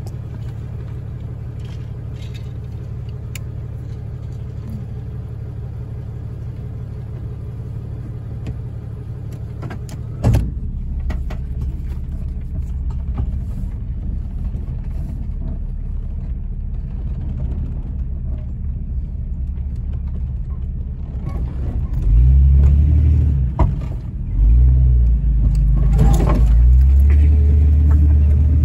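Vehicle engine and road rumble heard from inside the cabin while driving a dirt track, steady and low, with a single knock about ten seconds in. In the last several seconds the engine gets louder and its pitch wavers up and down as it works harder.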